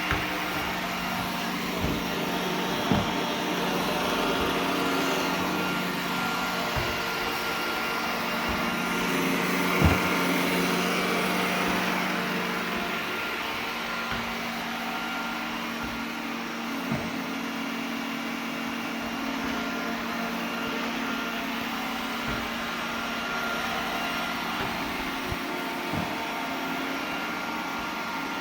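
iRobot Roomba 980 robot vacuum running, a steady motor and fan hum whose low tone shifts about halfway through. A handful of short knocks sound along the way, the loudest about ten seconds in.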